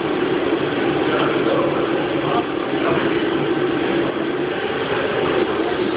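Haas CNC machine running with a steady mechanical drone that holds an even level throughout.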